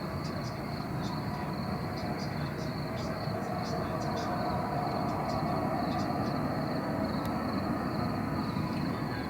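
A loud, steady rolling rumble of unknown origin with a howling tone running through it, swelling slightly about halfway through.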